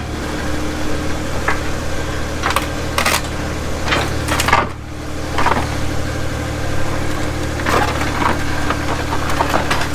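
A small loader's engine running steadily while its steel forks knock, scrape and crack against a wooden pallet in a string of irregular impacts, the loudest about halfway through.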